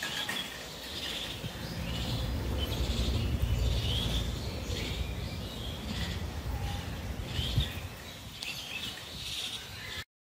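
Short high chirping calls repeat about once a second over a low rumble, the rumble strongest in the middle of the clip. The sound cuts off just before the end.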